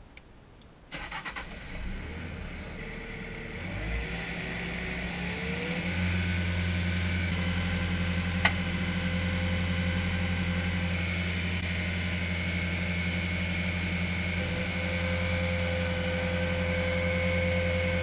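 Bobcat skid-steer loader's diesel engine starting about a second in, then running and throttling up over the next few seconds to a steady, higher-speed run. A single sharp click about eight and a half seconds in.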